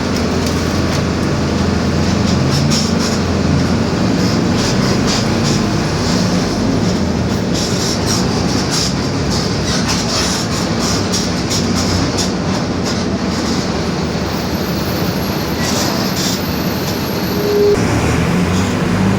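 Inside a Mercedes-Benz OF-1721 BlueTec 5 city bus under way: the six-cylinder diesel engine running, its pitch rising and falling as it pulls and changes gear, over steady ride noise and rattling from the body, with a growling rear differential. A short beep sounds near the end.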